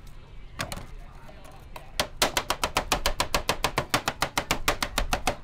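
A knife chopping on a cutting board: a couple of single cuts, then from about two seconds in a fast, even run of about nine strokes a second.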